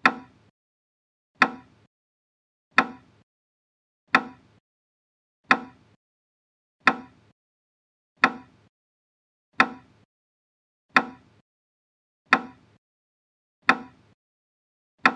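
A single percussive beat, a sharp strike with a short ringing decay, repeats evenly about every 1.4 seconds. It is the pacing cue for slow Kapalbhati, one forceful exhalation per beat.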